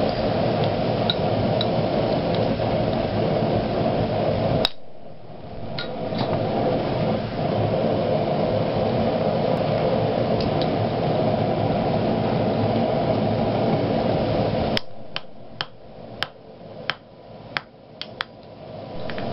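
A forge roaring steadily, cutting out suddenly twice. In the quieter stretch near the end, a run of sharp metallic clinks comes about every half second.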